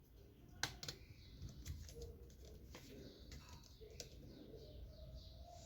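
Faint clicks and taps of plastic blender parts being handled and fitted together during reassembly, the sharpest about half a second in and again near the four-second mark.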